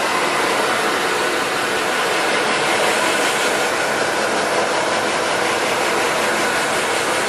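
Handheld hair dryer blowing steadily.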